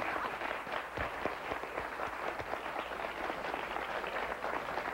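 Studio audience applauding, a dense patter of many hands clapping.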